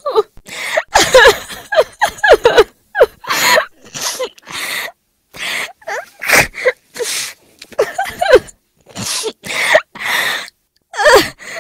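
A woman crying hard in broken, rapid sobs, with wavering wails and sharp gasping breaths. Short, explosive coughs come between them, from a throat dried out by the crying.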